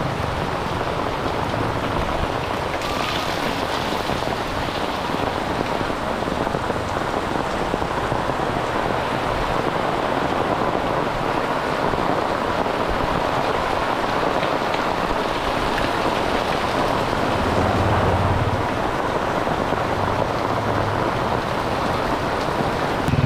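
Heavy tropical rain pouring onto a wet paved street, a dense steady hiss.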